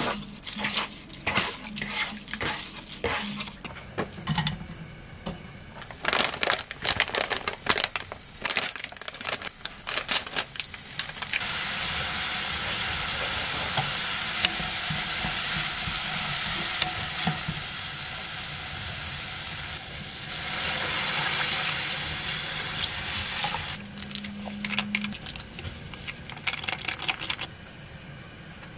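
Wet squishing and clicking as raw oysters are rubbed clean by hand in a bowl. Then, from about eleven seconds in, a steady sizzle as sliced onion, chili, scallion and dried shrimp are stir-fried in a pan. The sizzle swells louder again about twenty seconds in and dies down near the end.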